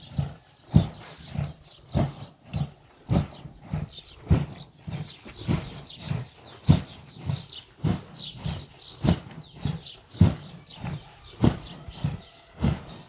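Traditional hand-worked milk churn making buttermilk: a steady rhythm of thuds, a little under two a second.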